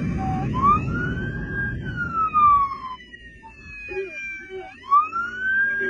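Police motorcycle siren in slow wail mode, rising and falling twice in long sweeps, over the motorcycle's engine and wind rush. The engine and wind rush are loud for the first couple of seconds and then drop away.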